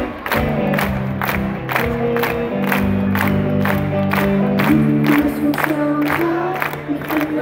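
Rock band playing live through a festival PA, heard from the crowd: electric guitars and bass over a steady drum beat, with crowd noise underneath.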